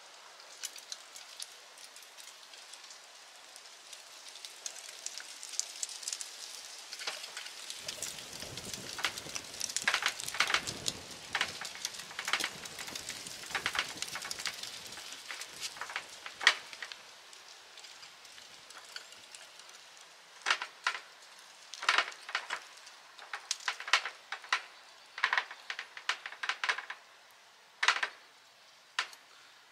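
Hands working small parts: a run of light clicks, taps and rustling as a small cover is fitted and screwed back on, with denser scraping and handling noise about eight to sixteen seconds in and sharper separate clicks over the last ten seconds.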